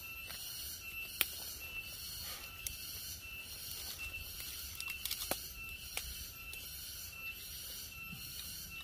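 Fingers picking apart a grilled fish on a bed of dry palm fronds: quiet rustling and handling, with a few sharp clicks, the loudest about a second in. Under it runs a steady, evenly pulsing high-pitched background.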